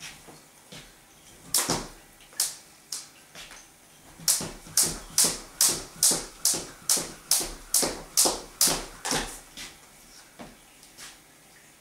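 Skipping rope slapping the floor as it is turned, sharp clicks: a few scattered strikes, then a steady run of about two and a half a second from about four seconds in that stops near nine seconds, with a couple of stray strikes after.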